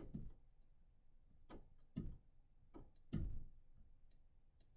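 Dry-erase marker writing on a whiteboard: a handful of short, faint scratches and taps as the letters are written, the strongest about three seconds in.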